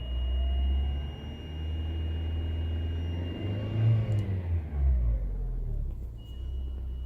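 Lada Vesta CNG's gas pressure reducer whistling, a steady high-pitched tone over the running engine, the sign of a faulty reducer. The whistle cuts out about four seconds in as the engine note rises and falls briefly, and comes back near the end.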